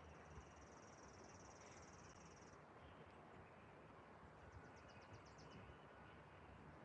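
Near silence with a faint, high-pitched trill lasting a couple of seconds, then a shorter, pulsed trill about four and a half seconds in.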